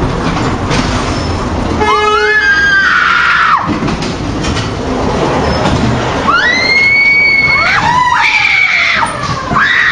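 Fairground ride running with a steady loud noise, and riders screaming over it: one long scream about two seconds in, then several overlapping screams from about six seconds on.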